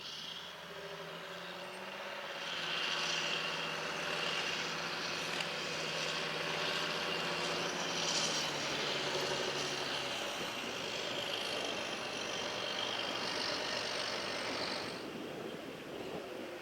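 Tractor engine running steadily under load, growing louder about three seconds in and dropping off near the end.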